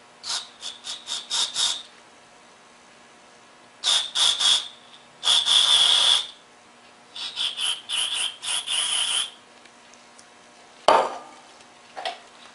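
Aerosol carburetor cleaner sprayed through its straw into the high-speed needle of a Tecumseh carburetor in a series of hissing bursts, mostly short puffs with one longer spray, to flush its single side hole. Near the end a sharp knock, then a smaller one.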